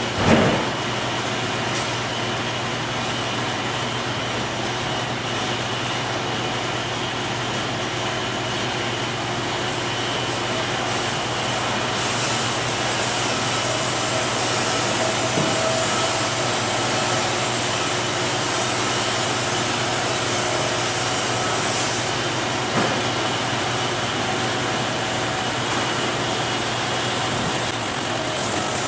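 Wood-Mizer LT50 bandsaw mill running steadily, its electric motor and band blade giving a constant hum with a hiss over it. A sharp knock sounds just after the start and a lighter one later on.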